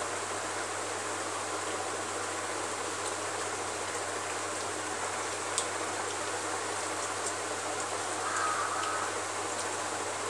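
Steady hissing background noise with a low hum underneath, broken by a single faint click about five and a half seconds in.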